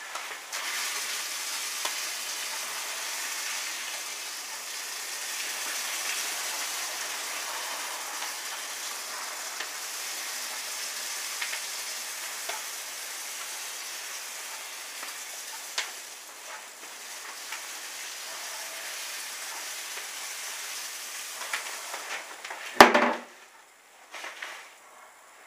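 Crushed malt grain pouring steadily into hot strike water in a cooler mash tun while mashing in, a continuous hiss. Near the end there is one loud knock.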